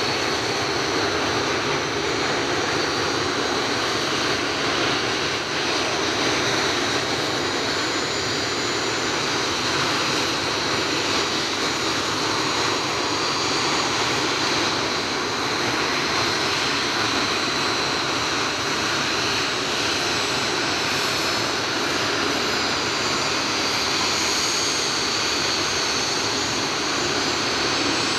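Several BAE Hawk T1 jet trainers taxiing at low power, their Rolls-Royce Turbomeca Adour turbofans giving a steady jet whine: a held high tone over a dense rush that keeps an even level.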